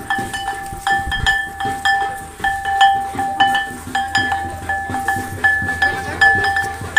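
A ringing metal instrument struck over and over, about three strikes a second, its ring holding a steady tone between strikes.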